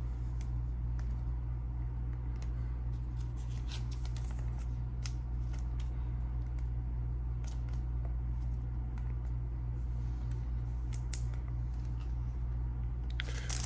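Baseball trading cards being handled and slid into thin plastic penny sleeves: scattered small clicks and crinkles of plastic, over a steady low hum.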